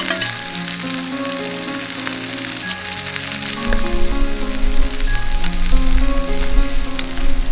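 Garlic shrimp sizzling in oil in a pan over a fire, a steady frying hiss. Background music plays over it, and a deep bass comes in about halfway, making it louder.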